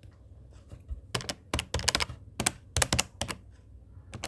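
Keys being typed in quick clusters of sharp clicks, beginning about a second in.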